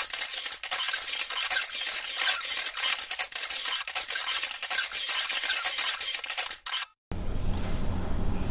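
Crackling, static-like noise from an edited-in intro, full of fine clicks and hiss, cutting off suddenly about seven seconds in. After a short gap comes a low steady rumble from a body-worn camera's microphone.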